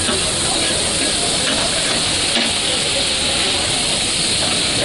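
Liver, tomatoes and chillies frying in oil on a large flat steel griddle: a steady, loud sizzle, with a few light clicks of a metal spatula against the griddle.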